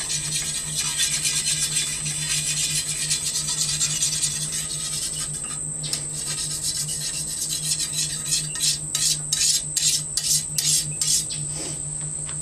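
Sharpening stone rubbed back and forth along a steel sword blade, a run of rasping strokes that become distinct at about three a second in the last few seconds. A steady high insect buzz runs behind it.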